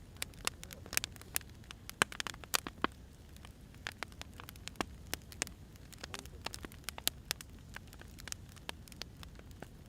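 Wood fire crackling: irregular sharp pops and snaps, several a second, over a low steady rumble of the burning logs.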